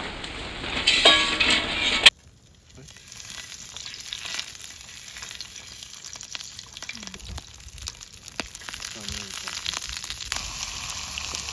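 Food frying in a pan, a steady sizzling hiss with small crackles and pops, starting about two seconds in after a louder, different noise cuts off abruptly.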